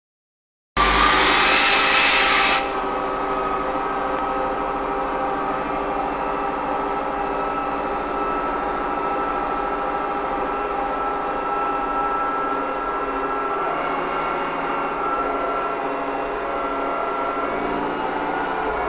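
Deutz-Fahr M410 tractor's diesel engine running steadily under way, heard from the driver's seat as a steady drone with several held tones. It starts just under a second in, with a loud hiss over the drone for the first couple of seconds.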